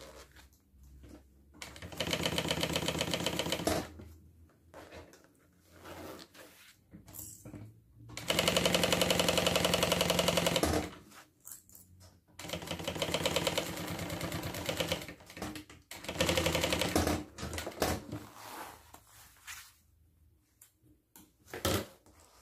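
Industrial sewing machine stitching a zipper seam in about four short start-stop runs, a fast even needle rhythm. The longest and loudest run is about eight to eleven seconds in, with quiet fabric rustling in the pauses between runs.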